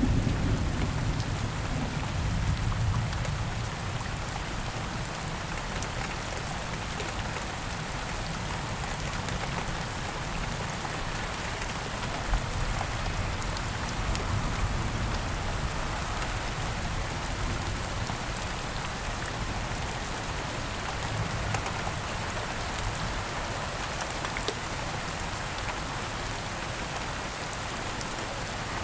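Steady rain falling, with scattered sharp drop ticks. A low thunder rumble dies away over the first few seconds.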